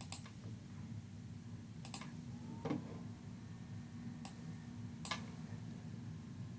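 About five scattered, sharp clicks of a computer mouse and keyboard being worked, the loudest near the middle, over a steady low hum.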